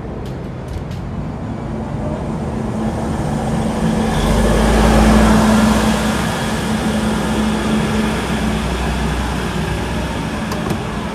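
NSW Hunter-class diesel railcar passing close by: engine drone and wheel-on-rail rumble build to their loudest about five seconds in, then ease off as the train moves on.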